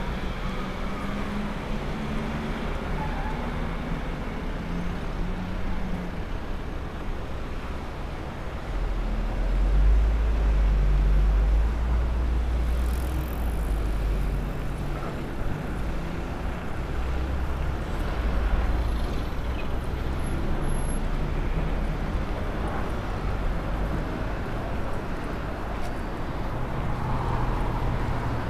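Road traffic: motor vehicles passing on a city street, a steady rumble of engines and tyres that swells as one passes close about ten seconds in.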